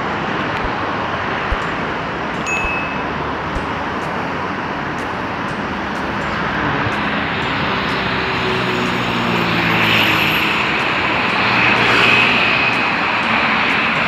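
Steady road traffic on a busy bridge. In the second half an engine passes close, growing louder, with its pitch shifting.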